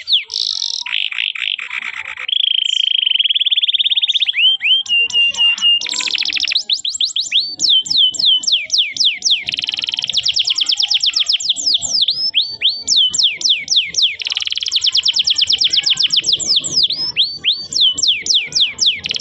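Domestic canary singing a long, loud, high-pitched song: a fast steady trill early on, then runs of quick down-sliding whistled notes, several a second, with dense rolling trills.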